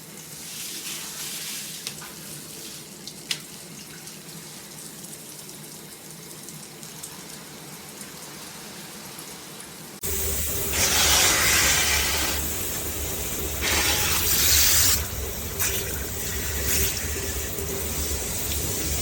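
Water spraying from a NOSAME handheld shower head: a steady hiss, then, after an abrupt change about halfway through, louder spray that surges several times over a low rumble.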